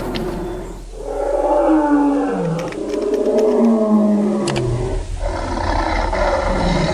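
A big cat's roar, as used for a cartoon tiger: a long roar falling in pitch, then a second roar about five seconds in.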